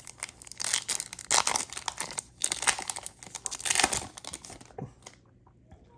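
Crinkling and tearing of a trading-card pack's foil wrapper as it is ripped open and handled, a dense crackle for about three and a half seconds that then stops.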